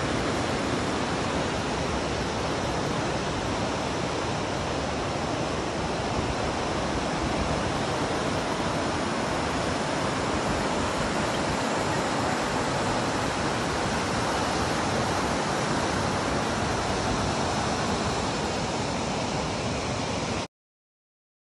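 Steady rushing of whitewater river rapids, cutting off suddenly near the end.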